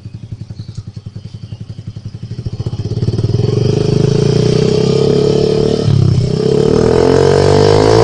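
Yamaha Mio Fino 125 FI scooter's single-cylinder four-stroke engine, stock, breathing through an aftermarket Akrapovic blue slip-on exhaust: idling with even pulses, then revved up hard about two and a half seconds in and held at high revs, dipping briefly near six seconds before rising again.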